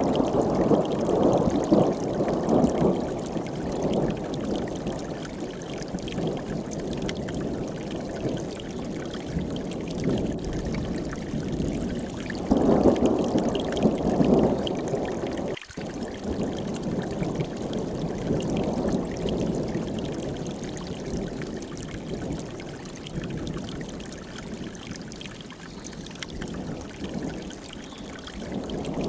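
Mountain stream rushing and splashing steadily, swelling louder now and then. The sound cuts out for an instant about halfway through.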